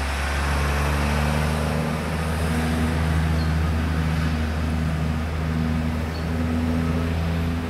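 A motor vehicle engine running steadily close by, a loud low drone whose pitch wavers slightly.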